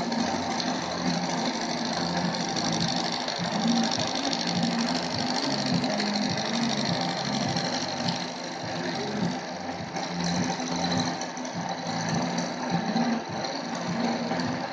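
Milling machine running steadily, its end mill cutting into a metal part clamped in a vise.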